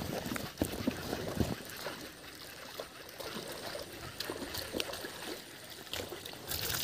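Water splashing and sloshing, with irregular knocks and strikes, loudest in the first second and a half.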